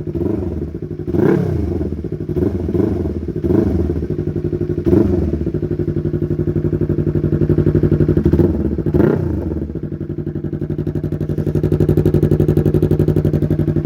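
Yamaha R3's parallel-twin engine running through an aftermarket exhaust, idling with about six quick throttle blips in the first ten seconds. Each blip rises and falls in pitch, and the engine then settles to a steady idle.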